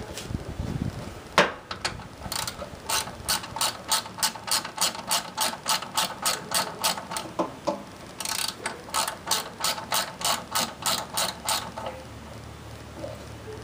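Ratchet with a 10 mm socket clicking as a fender bolt is backed out: a sharp single clack about a second and a half in, then steady ratcheting at about four clicks a second in two runs, with a short pause about halfway.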